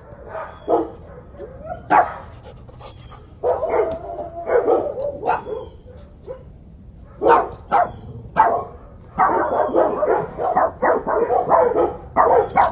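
Dog barking in short, sharp barks, with a longer drawn-out cry about four seconds in and a rapid run of barks over the last few seconds.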